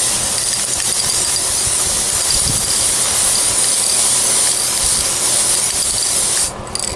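Aerosol can of Citadel spray primer spraying in one continuous stream: a steady hiss that stops shortly before the end.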